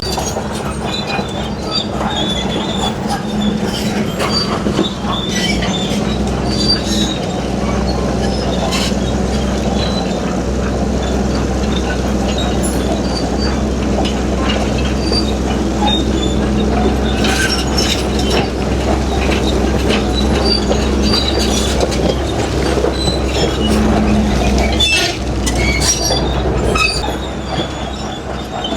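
Crawler bulldozer's diesel engine running steadily under load, with scattered metallic clanks and knocks from its tracks and the rock it is pushing.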